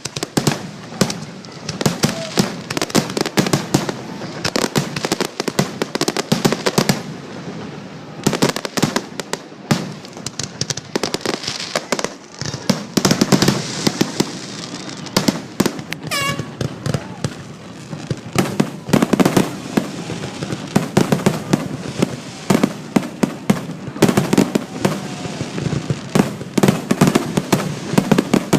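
Fireworks grand finale: aerial shells bursting in rapid, near-continuous bangs, with a falling whistle about two-thirds of the way through.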